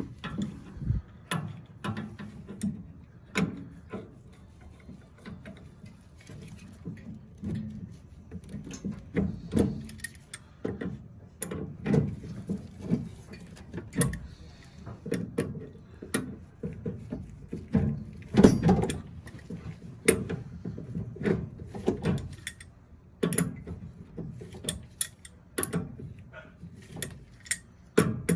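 Irregular clicks, clinks and knocks of hand tools on metal as the burner orifice is unscrewed from a furnace's gas valve to clear a spider web clogging it.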